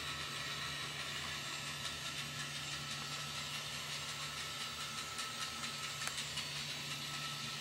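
Plarail battery-powered toy train running along its plastic track: a steady motor-and-gearbox whine with faint irregular clicks from the wheels on the track.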